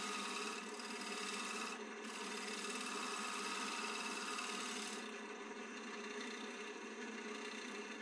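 A turning tool cutting a spinning western red cedar block on a wood lathe: a steady scraping hiss over the lathe's running. The highest part of the hiss eases about five seconds in.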